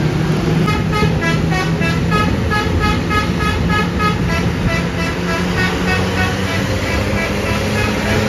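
Bus's Basuri telolet horn playing a quick tune of short notes over the running bus engine, starting about a second in and stopping about six seconds in.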